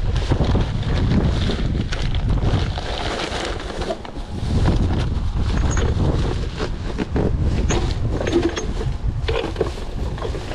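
Wind buffeting the microphone with a loud low rumble, while thin plastic bags rustle and crinkle as they are handled and shaken open.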